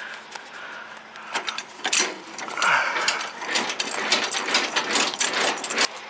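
Rapid, uneven metallic clicking and ratcheting from trailer hardware being worked by hand, starting about a second and a half in and stopping just before the end.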